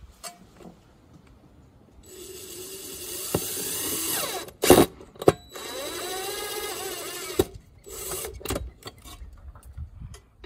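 Cordless drill driving screws through the back of a metal electrical disconnect box into a house wall: a first run of the motor rising in pitch, a few sharp clicks, a second run of the motor, then short bursts near the end.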